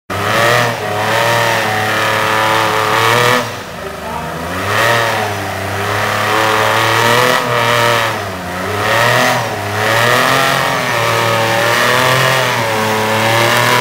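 Rock-crawler buggy's engine revving hard over and over as it climbs a boulder, its pitch rising and falling about every second.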